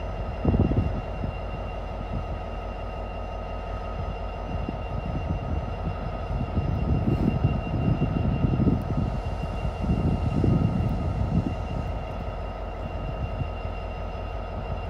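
Vossloh Euro 4000 diesel-electric locomotive's engine running at standstill: a steady low drone with a steady high whine over it. There are louder low surges just after the start and again twice around the middle.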